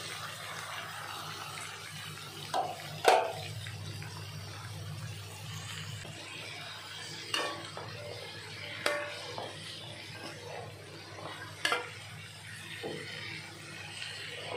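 Metal spatula stirring long beans and melinjo skins in a metal wok, with about six sharp knocks and scrapes against the pan, the loudest about three seconds in, over a steady low sizzle of stir-frying.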